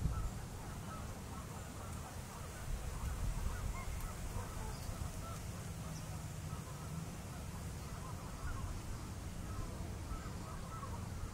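Faint, scattered calls of distant waterfowl over a steady low rumble.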